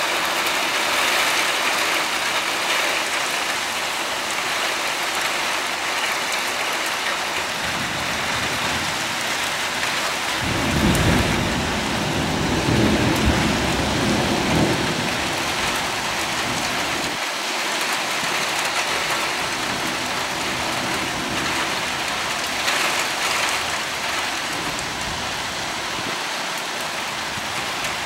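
Steady rain hissing down throughout, with a long roll of thunder that builds about a quarter of the way in, rumbles loudest for several seconds, then fades out a little past the middle.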